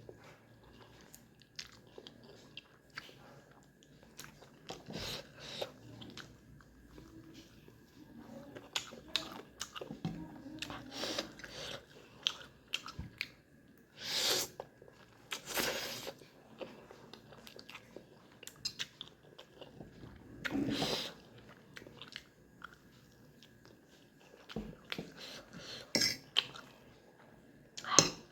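Close-miked chewing and biting of food, with wet mouth sounds and crunches coming at irregular intervals, and a few louder bursts around the middle.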